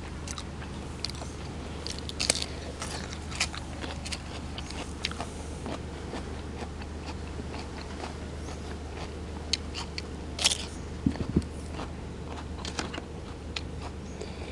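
Close-miked eating: scattered crunchy bites and wet chewing over a steady low hum, with louder crunches about two seconds and ten seconds in.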